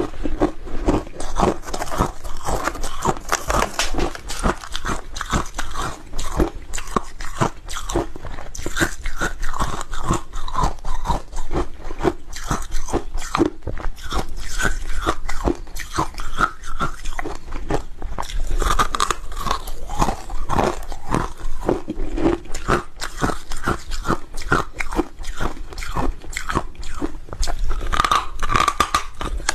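Hard frozen ice chunks being bitten and chewed, a continuous run of sharp cracking crunches that come many times a second.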